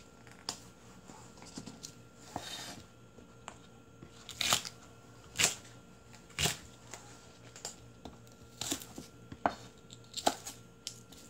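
Chef's knife chopping green onion on a wooden cutting board: sharp, irregular knocks of the blade through the stalks onto the board, roughly one a second.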